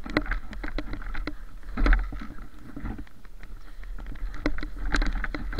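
Footsteps crunching through deep snow: an uneven run of short crunches and crackles as someone wades along, over a low rumble of movement on a body-worn microphone.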